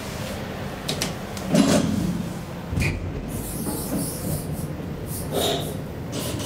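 KONE hydraulic elevator in operation, heard from inside the car: a steady low hum with several knocks and clunks, the loudest about a second and a half in.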